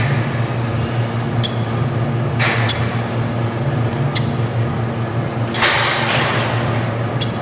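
Weight-stack plates of a cable machine clinking together with a sharp metallic ring about once every second and a half as reps are pumped out, over a steady low hum.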